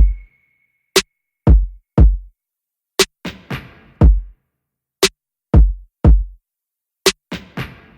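Background music: an electronic drum-machine beat with deep kick drums and sharp snare-like hits, in a pattern that repeats every two seconds.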